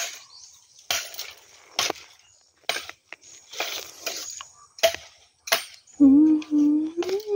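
Bamboo being cut or broken: sharp cracks about once a second at first, then more spaced out, with rustling of leaves and stalks between them. About six seconds in, a steady pitched tone starts and holds to the end.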